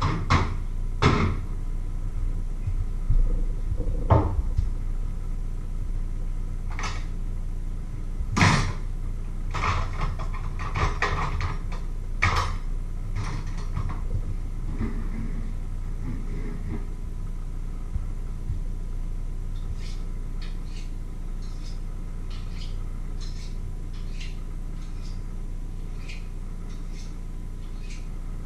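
Kitchen handling noises: clattering and sharp knocks of pots and utensils, strongest in the first half, then a run of lighter clicks, over a steady low hum.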